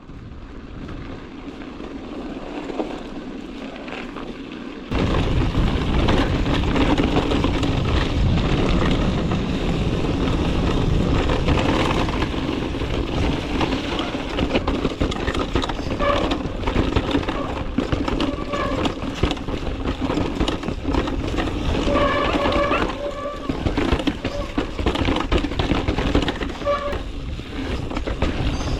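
Guerrilla Gravity Smash mountain bike riding a rough dirt trail: tyres on the dirt and the bike rattling, with wind buffeting the microphone, much louder from about five seconds in. Short tonal squeaks come and go in the second half.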